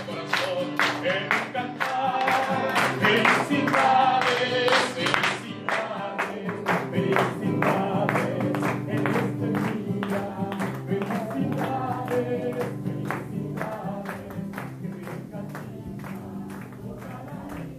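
Group singing with an acoustic guitar strummed along and hands clapping in a steady beat.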